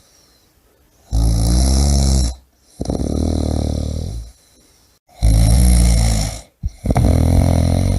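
A sleeping person snoring: four long, loud snores of over a second each, coming in quick succession with short quiet gaps between breaths.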